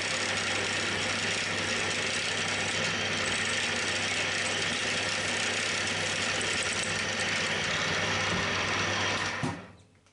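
Milling machine spindle and drive motor running steadily with a hum while a small drill bit drills pin holes in a small steel valve plate. The running sound cuts off about nine and a half seconds in.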